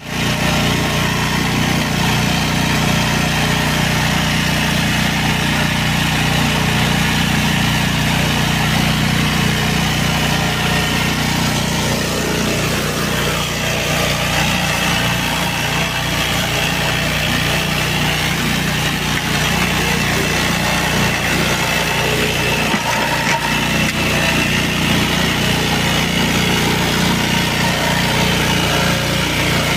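Engine of a BCS 742 walk-behind two-wheel tractor running steadily under load, driving its front-mounted Blade Runner mower through tall grass.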